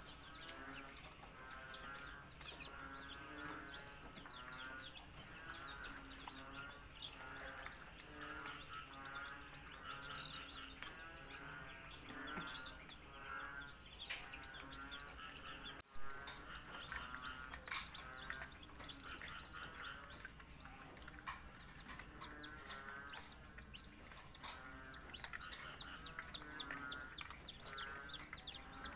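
Young serama, rosecomb and Siamese chicks in a wire cage calling over and over with short warbling trills and soft chirps, with a steady high-pitched whine behind them. A single sharp knock about halfway through.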